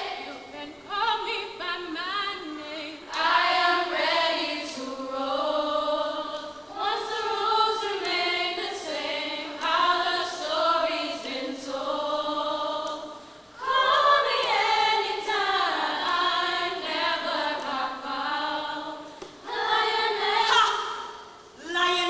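A choir singing together, in several sung phrases with short breaks between them.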